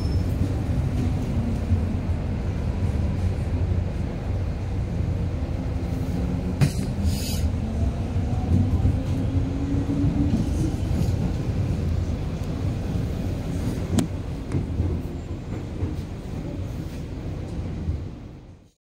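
MTR metro train running, heard from inside the carriage: a steady low rumble with a faint electric motor whine that rises and falls, and a few sharp clicks. It fades out near the end.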